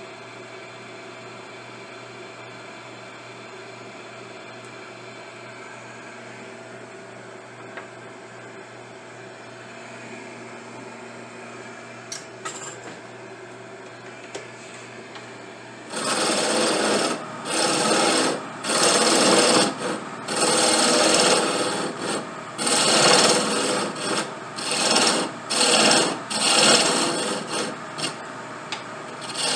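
A steady motor hum, then, about halfway through, a run of loud abrasive strokes on briar wood, roughly one a second and each just under a second long, as the pipe bowl is shaped.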